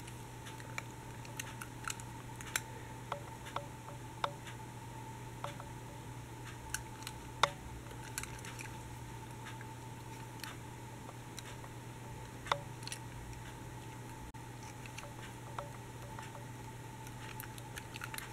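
Scattered small clicks and taps of a toy tram model being turned over in the hands, over a steady hum; one click a little before halfway is louder than the rest.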